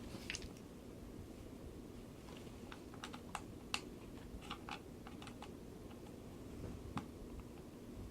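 Faint, irregular small clicks and taps of hand work on a toy RC car's plastic chassis as small screws or parts are taken out, a few clicks a second at the busiest.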